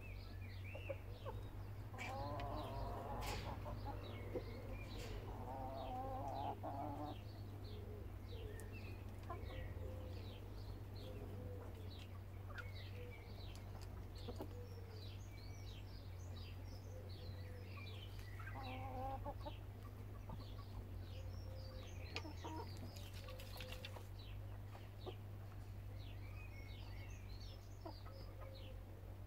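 Backyard chickens clucking, with bursts of louder clucking about two seconds in and again just before twenty seconds, over many short high chirps.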